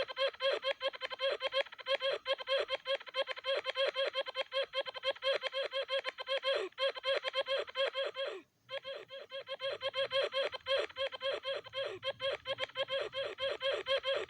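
A high-pitched laugh-like voice repeats short 'ha' sounds rapidly and evenly, several a second, each syllable dipping in pitch at its end. It goes in two long runs with a brief break about halfway through.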